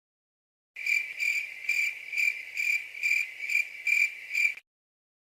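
Cricket chirping: a steady high trill pulsing about twice a second, starting just under a second in and stopping abruptly after about four seconds.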